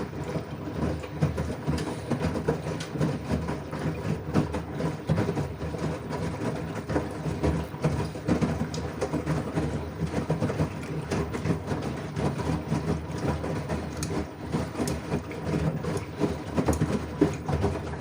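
LG washing machine running a wash: a steady low hum from the drum with dense rattling and clicking throughout.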